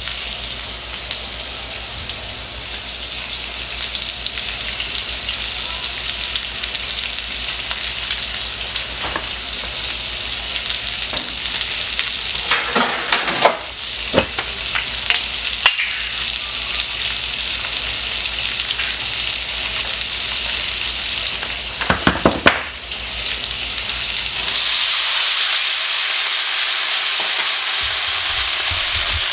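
Chicken pieces frying in oil in a cast-iron skillet, a steady sizzle, with a few brief clatters partway through. The sizzle grows louder near the end.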